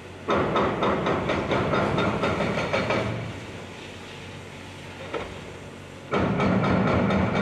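Heavy Volvo EC380EL excavator working, its engine running under load with a fast metallic clatter. The clatter comes in two spells, about three seconds from just after the start and again from about six seconds in, with a lower machine rumble between.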